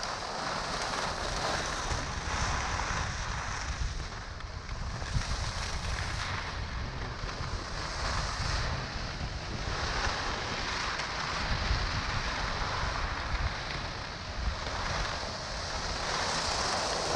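Wind buffeting the microphone over skis hissing and scraping on groomed snow. The scraping swells and fades every second or two, with a low rumble underneath.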